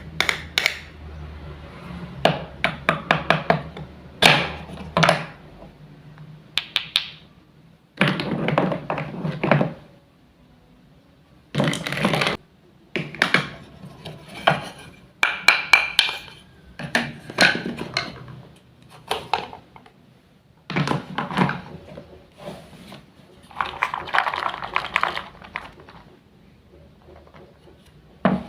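Wooden toy fruits and vegetables being cut apart with a toy knife and handled: clusters of sharp wooden knocks and clacks, with a few longer rasping bursts of a second or two between pauses.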